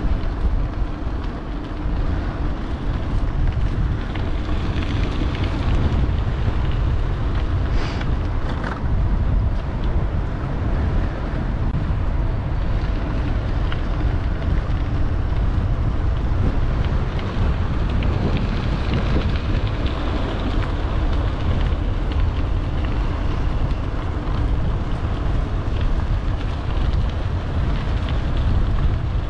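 Wind buffeting the microphone of a camera riding on a moving e-bike, a loud, steady low rumble, with a couple of brief sharper sounds about eight seconds in.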